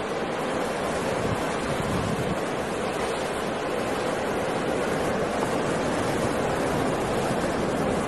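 Stormy ocean surf breaking in strong wind: a steady, unbroken wash of water noise with no single crash standing out.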